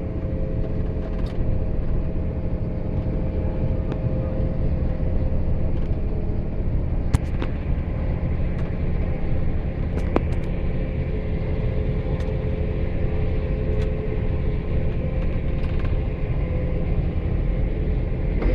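Motor vehicle running steadily: a deep rumble under a constant engine hum, with a few short sharp ticks scattered through.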